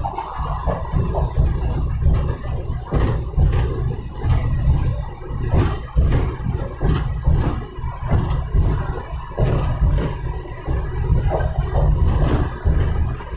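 Road and engine noise of a car on the move, heard from inside, with a heavy, gusting low rumble of wind buffeting the microphone.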